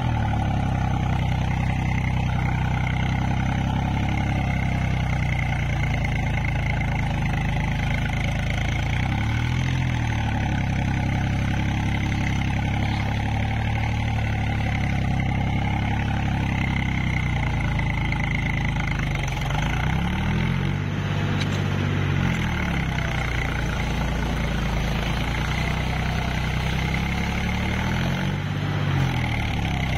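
Swaraj 735 FE tractor's three-cylinder diesel engine running steadily under load as the tractor works its cage wheels through deep wet mud. The engine note wavers a few times.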